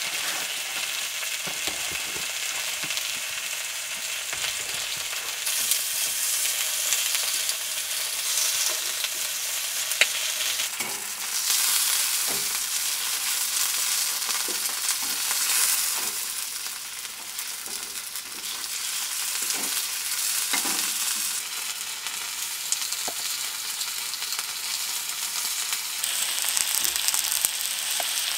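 Sausages, potato slices and corn frying in a pan on a small wood stove: a steady sizzle that swells and eases, with a few short clicks and scrapes as the food is turned.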